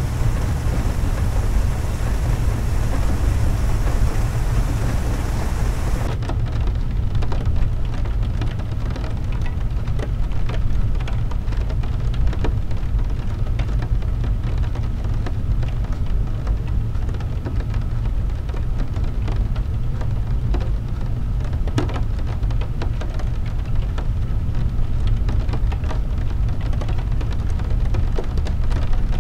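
Rain on a car's windshield heard from inside the moving car, with many small drop ticks over a steady low rumble of tyres and engine on the wet road. A high hiss over the top cuts off suddenly about six seconds in.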